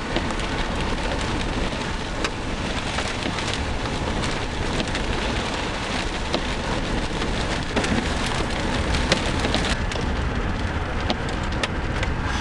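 Heavy rain drumming on a car's windshield and roof, heard from inside the cabin, with many sharp knocks of drops striking the glass. The hiss eases slightly about ten seconds in.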